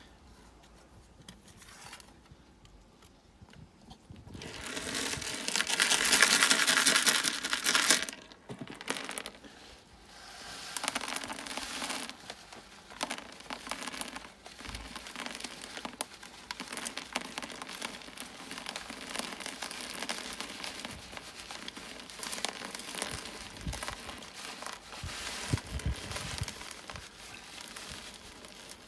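Ballast poured from a bag into the neck of a plastic pond bottom drain: a loud steady hiss of pouring grit from about four and a half to eight seconds in, then the bag crinkling and rustling with smaller trickles as it is shaken out.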